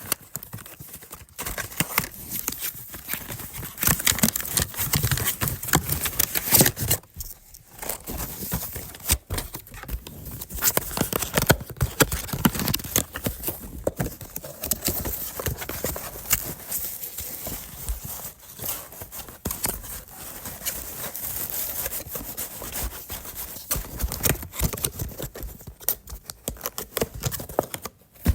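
A package being unboxed: a cardboard box handled and opened, with irregular knocks, scrapes and rustling of packaging and short pauses between bursts.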